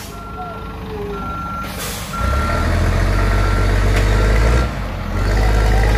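Scania truck's reverse alarm beeping about once a second while its diesel engine works under load. The engine rises sharply about two seconds in, just after a short hiss, and dips briefly near the five-second mark.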